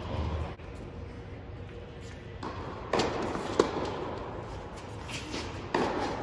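Tennis ball being struck by rackets and bouncing on an indoor hard court: sharp pops about three seconds in, a louder one a moment later, and another near the end, each echoing in the large hall.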